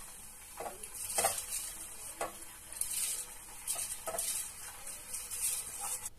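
Rice being tipped and scraped by hand out of a steel bowl into a steel pot of water, heard as a string of short, irregular wet swishes and scrapes with light knocks of metal on metal.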